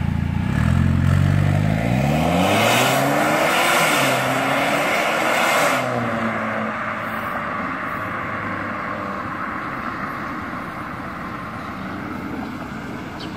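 Mercedes-Benz CLA on a full aftermarket exhaust, with its exhaust valve closed, accelerating hard away. Its turbocharged four-cylinder climbs in pitch, eases briefly about four seconds in, climbs again, then fades as the car drives off into the distance.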